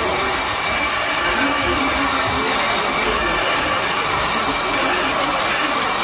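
Handheld hot-air blower running steadily with a constant rushing hiss, aimed at a smartphone's back panel to heat and soften the adhesive so the back can be opened.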